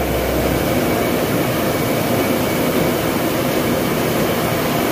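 Corn grinding mill running steadily at full work, a loud, even mechanical noise as corn is milled into grits.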